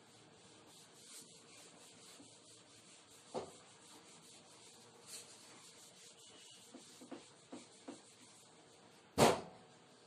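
A hand-held eraser wiping a whiteboard: faint, repeated rubbing strokes, with a small knock about a third of the way in. A much louder sharp knock comes about a second before the end.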